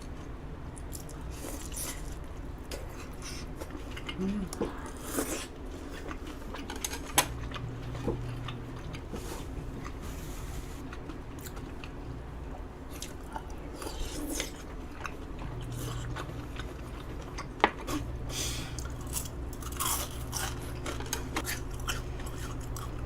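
Close-miked chewing and biting of fried tempura soaked in tteokbokki sauce, with irregular crunching and wet mouth sounds and a couple of sharp clicks.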